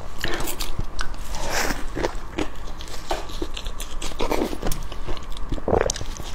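Close-miked biting and chewing of sauced pig skin: irregular wet mouth sounds and clicks, with a few louder bites spread through.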